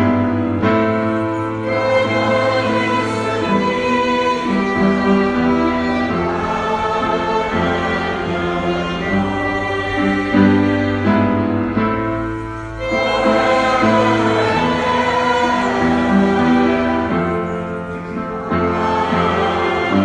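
Slow instrumental music led by bowed strings, sustained chords over held low bass notes, changing every couple of seconds.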